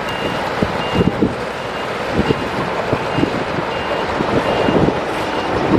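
Heavy earthmoving machine running under load, with irregular low knocks, while a reversing alarm beeps steadily a little over once a second.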